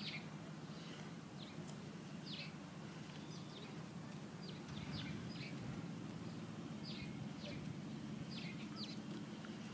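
Small birds chirping: short, high chirps repeating about once a second, over a steady low background hum.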